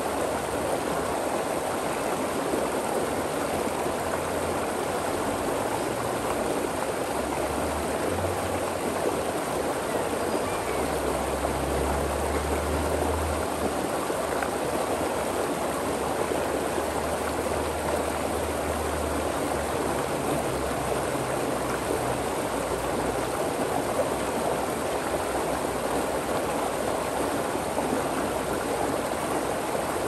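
A shallow stream of water rushing and splashing over rocks, a steady, unbroken sound.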